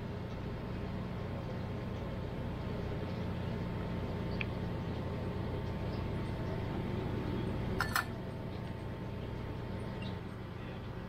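Steady low machine hum with a thin steady whine running under it, and one short sharp clink about eight seconds in, with a fainter tick a few seconds before.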